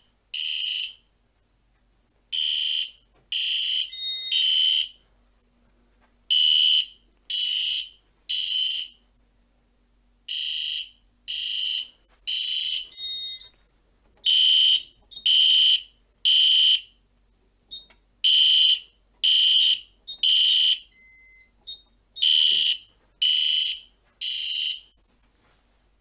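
Edwards (EST) Genesis GL LED horn strobe's electronic horn sounding the temporal-three evacuation pattern: three loud, high-pitched half-second blasts, a pause, then three more, repeating.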